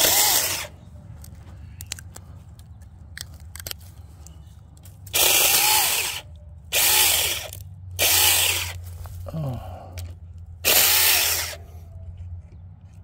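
Battery-powered electric chainsaw run in five short bursts of about a second each, its motor whining up and winding down each time as it saws through small shoots.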